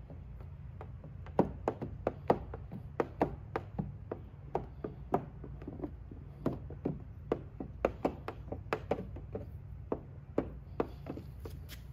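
Hard plastic squeegee clicking and tapping against the wet film-covered headlight as it is pushed across and lifted off. The sharp clicks come at irregular intervals, two or three a second, and grow louder about a second and a half in.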